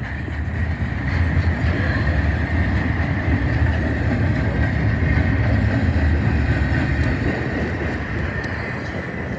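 Double-stack intermodal freight train's well cars rolling past, a steady rumble of steel wheels on rail with a thin, high steady tone above it.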